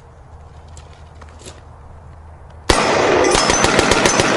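Rifle fire: a low hum for the first couple of seconds, then, about two-thirds of the way in, a loud, dense crackling burst full of sharp reports.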